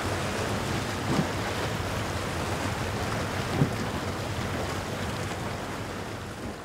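Wind buffeting the microphone over the sound of open sea and waves, a steady rushing noise. Two brief low thumps come about a second in and at three and a half seconds, and the noise slowly fades toward the end.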